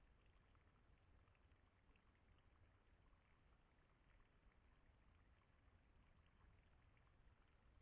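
Near silence: faint low rumble and hiss.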